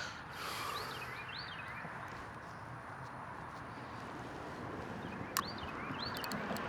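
Steady hum of road traffic with a bird chirping in short rising-and-falling notes, twice. A single sharp click comes about five seconds in, followed by a few quick ticks near the end.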